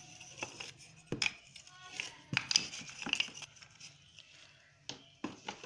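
Small wooden blocks knocking and clacking against each other, with cloth rustling, as a hand rummages in a plastic bucket and picks out wooden wedges: a handful of sharp knocks spread irregularly over the few seconds.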